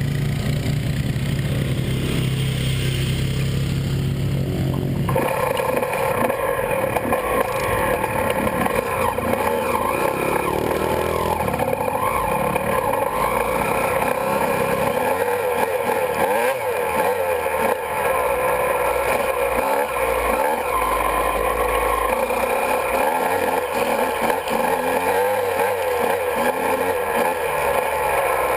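Honda CR125's two-stroke single-cylinder engine: idling low and steady for about five seconds, then running at higher revs as the bike rides, its pitch wavering up and down with the throttle.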